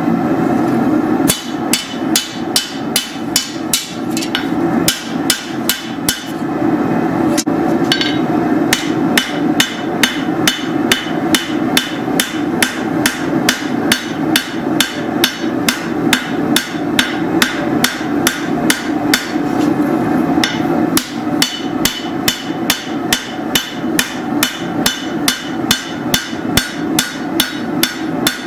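Hammer blows forging a steel machete blade, struck in a steady rhythm of about two to three blows a second, over a constant low roar.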